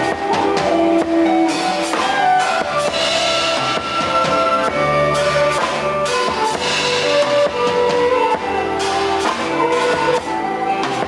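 Instrumental music with drums and guitar playing a melody.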